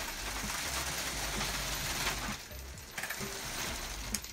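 Drive system of a 3D-printed R2-D2 droid running on a test drive, with the foot's belt drive slipping. The mechanical noise is louder for the first couple of seconds, then drops off, with scattered clicks.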